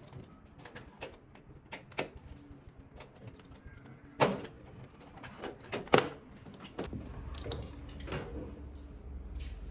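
Scattered clicks and knocks of parts and tools being handled during work on an LED TV, with two louder knocks about four and six seconds in. A low steady hum comes in about seven seconds in.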